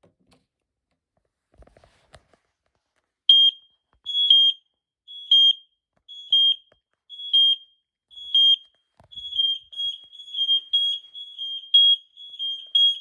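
Smoke alarm sounding during a test, starting about three seconds in: a shrill high beep about once a second, which comes roughly twice as fast and runs together from about nine seconds in.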